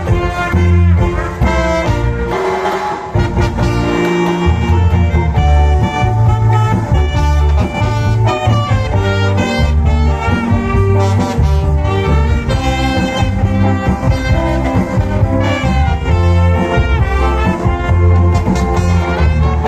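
Cha-cha dance music played loud through a mobile sound system, with a heavy repeating bass beat under horn-like melody lines.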